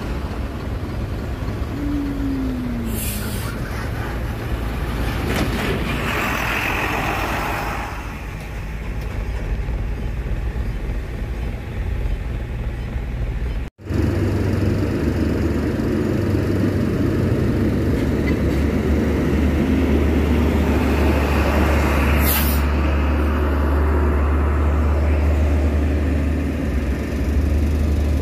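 Heavy diesel truck engines running, with a short hiss of air brakes about three seconds in and again about twenty-two seconds in. About halfway through the sound breaks off sharply, and after that the engine rumble is deeper and louder.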